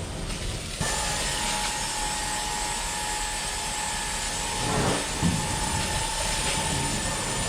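Carpet-cleaning extraction wand running on its vacuum hose: a steady rushing hiss with a constant high whine, coming back in just under a second in. A couple of low knocks sound about five seconds in.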